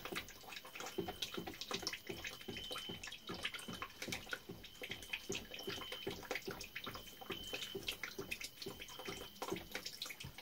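Water trickling from a shower hose into a plastic basin of water, with many small irregular drips and splashes.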